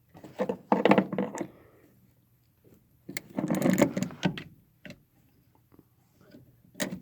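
Door latch hardware on a 1975 GMC truck door clicking and rattling as it is worked by hand, in two clusters of about a second and a half each, with a few single clicks later.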